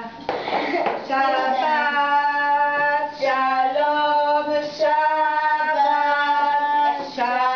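A woman and boys singing together without accompaniment, holding long, steady notes.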